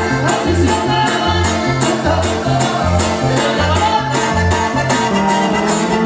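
Live norteño music: button accordion, electric bass and a small guitar, the bass swapping between two low notes under a steady beat.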